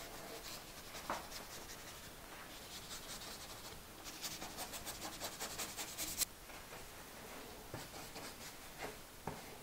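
Faint scratching of a wide flat paintbrush brushed over paper in bursts of quick, short strokes, with brief pauses between the bursts.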